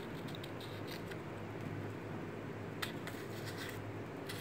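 Faint handling sounds of fingers screwing the battery cap back into the brightness dial of a Bushnell TRS-25 red dot sight: a few light clicks and scrapes over a steady low room hum.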